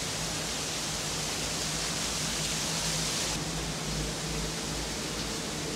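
Steady rushing noise with a low hum beneath it. A brighter hiss on top of it stops abruptly a little over three seconds in.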